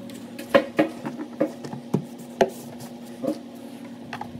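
Plastic engine cover of a 2.4 L Ecotec engine being pressed down onto its mounts: a series of about seven short knocks and clicks, with a steady low hum underneath.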